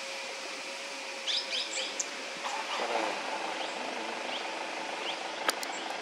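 Plum-headed parakeet giving short, high calls: a quick run of four about a second in, then fainter single notes spaced out after. A sharp click near the end.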